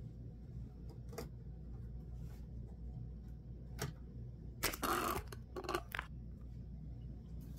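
Handling noises over a low steady hum: a few light clicks, then a short rustling scrape about five seconds in and two brief ones just after.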